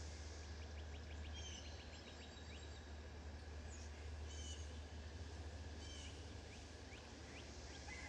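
Outdoor ambience with scattered short, high bird chirps and a brief rapid run of ticks about a second in, over a steady low rumble.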